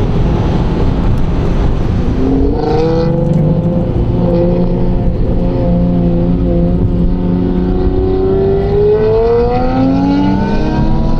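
Lamborghini Murcielago's straight-piped V12 under way, heard from a following car: road and wind rush at first, then the engine note comes through clearly, holds, climbs steadily as the car accelerates and drops near the end as the revs fall.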